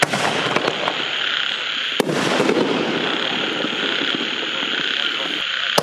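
5-inch canister shell fireworks: a sharp report right at the start as a shell lifts, and a single loud bang about two seconds in as it bursts, with another report near the end. Under them runs a steady chorus of frogs croaking.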